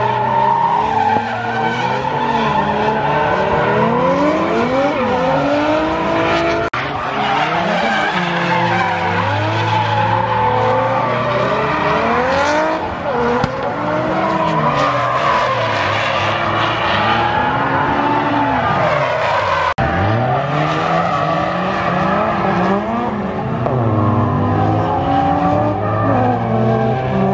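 Drift cars driven hard: engines revving up and dropping again and again, several at once, with tyres skidding and squealing through the slides. The sound jumps abruptly twice, about seven and twenty seconds in.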